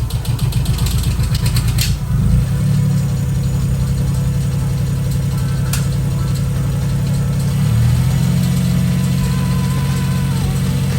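Suzuki Cappuccino's small three-cylinder turbo engine running just after its first start following a timing belt job. It clatters for the first two seconds while oil pressure builds in the hydraulic lifters, then settles into a steady idle, with the idle stepping up slightly about eight seconds in.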